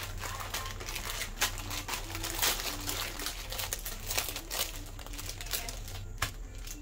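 Plastic instant mi goreng noodle packet crinkling and rustling in the hands as it is torn open and the noodle block and seasoning sachets are pulled out. Irregular crackles that thin out near the end.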